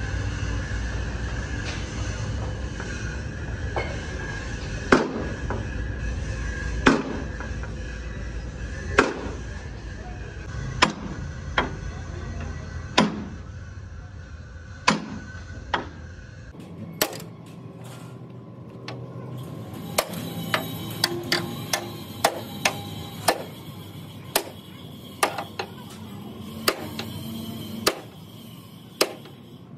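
Hammer blows on truck-cab sheet metal during bodywork repair. The strikes come one about every two seconds, then, after an abrupt change in the background about sixteen seconds in, a quicker and irregular run of strikes follows.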